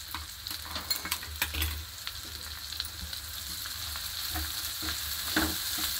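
Raw prawns, ridge gourd pieces and onions sizzling in a non-stick frying pan as they are stirred, with the spatula scraping and knocking against the pan a few times. The sizzle grows slowly louder.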